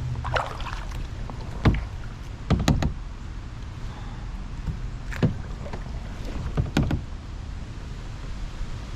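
Kayak paddle strokes: sharp knocks and splashes every second or two, some in quick pairs, over a steady low rumble of wind on the microphone.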